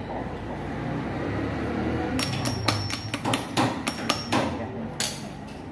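Metal hand tools clinking and knocking against a motorcycle engine's aluminium crankcase during assembly: a quick, irregular run of sharp metallic taps, some with a brief ring, starting about two seconds in and stopping about five seconds in, over a steady low workshop hum.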